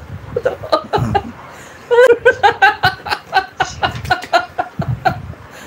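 A man laughing heartily in quick repeated bursts, with a short lull about a second in.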